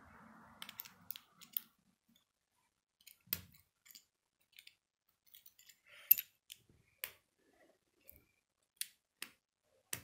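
Plastic K'nex pieces clicking and snapping as they are handled and fitted together: scattered sharp clicks at an irregular pace, the loudest about six seconds in.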